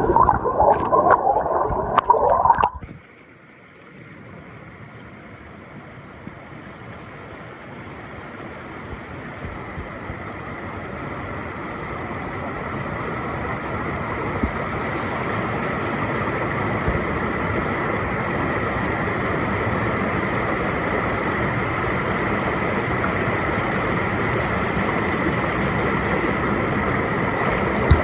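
Rushing water of the river at Shannon Falls, an even, steady rush that swells gradually over the first half and then holds level. For the first three seconds a louder, different noise with a few sharp clicks covers it, then cuts off abruptly.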